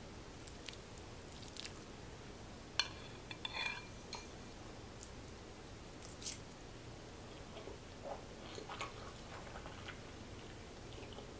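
Metal fork clinking against a glass bowl of sauced rotini pasta: one sharp clink about three seconds in and a few lighter taps after it, then quiet chewing of the soft macaroni.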